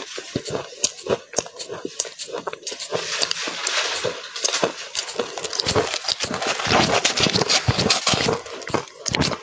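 Close-miked crunching and chewing of matcha-powdered ice, with quick crisp clicks. From about three seconds in it turns into a denser run of crunching and scraping as a metal spoon digs into the powdery ice in a plastic cup.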